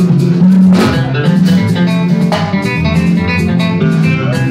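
Live band music: guitar lines over a bass line and a drum kit.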